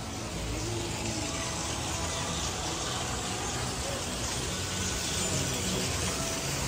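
Steady outdoor background noise with faint, indistinct voices in it.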